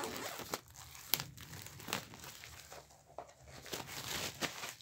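Crinkling and rustling of a Blu-ray box set's packaging as it is handled and opened, with several sharp crackles scattered irregularly through it.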